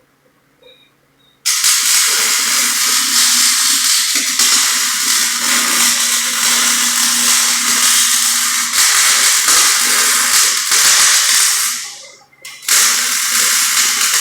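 Wire-feed welder arc crackling and hissing, starting about a second and a half in, breaking off briefly near the end and then striking again. The weld is being run at a voltage lower than the 19 to 20 the welder is about to turn it up to.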